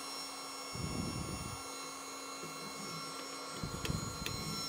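Kaleido M1 coffee roaster's cooling fan running with a steady, even hum of several constant tones while freshly dropped beans are cooled. A spoon stirring the beans in the cooling tray adds two short bursts of rustling, about a second in and near the end, and a couple of light clicks.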